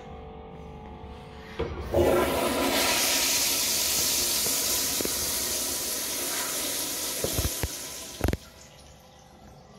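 A commercial wall-hung toilet with a flushometer valve flushes into a clogged drain line. About two seconds in, a loud rush of water starts suddenly, runs for about six seconds and then dies away. A few sharp knocks come near the end.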